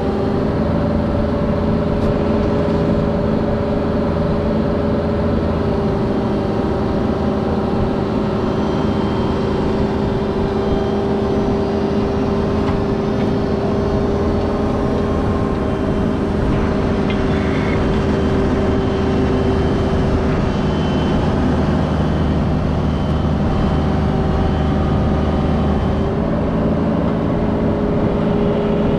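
Diesel engine of a Cat 304 mini excavator running steadily, its pitch shifting slightly a few times.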